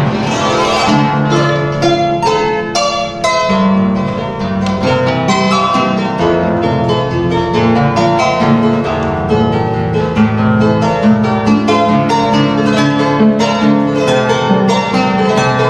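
A harp playing a lively tune, with a quick run of plucked notes over low bass notes.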